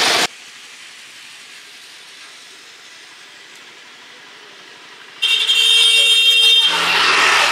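Quiet roadside background, then a vehicle horn sounds once, about five seconds in, as a steady high-pitched tone held for about a second and a half. Voices follow.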